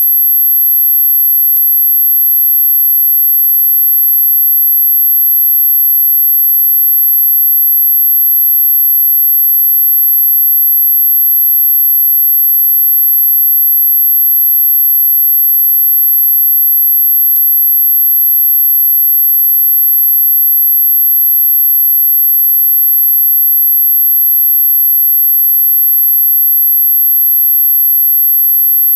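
Electronically generated pure tone, very high-pitched and steady, played as an anti-barking sound for dogs. Two faint clicks break it, one near the start and one a little past halfway.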